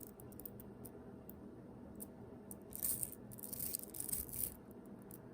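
Tiny 2.5 mm Speks magnet balls clicking and rattling together as they are worked by hand, with scattered small clicks and two denser flurries of clicking near the middle and later.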